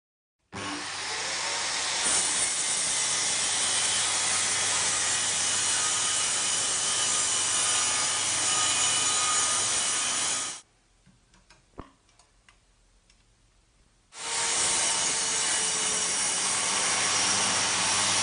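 Bosch GKS 66X circular saw cutting through wood in two long, steady passes, the first about ten seconds long, then a pause of a few seconds with a few faint clicks, then cutting again.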